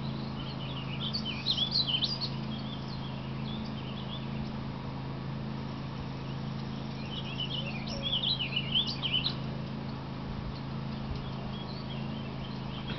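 A songbird singing two quick, jumbled phrases of high chirps, one about a second in and another about seven seconds in, each lasting a couple of seconds.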